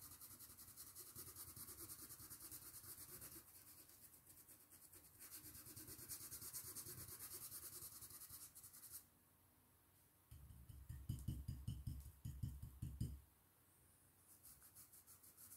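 Faint, quick, even dabbing and rubbing of a Tigre 803 size 6 stencil brush on fabric through a stencil, with a short run of louder dull thumps about ten seconds in.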